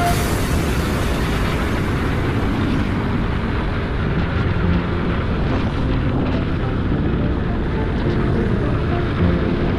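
Steady rush of wind and motorcycle engine noise, as heard from a bike on the move.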